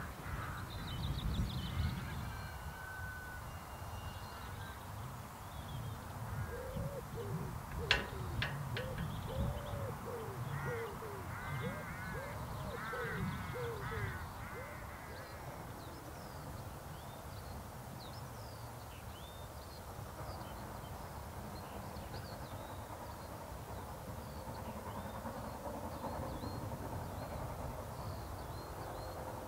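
Birds calling outdoors: a run of repeated lower calls in the middle, with high chirps scattered throughout. A single sharp click comes about eight seconds in.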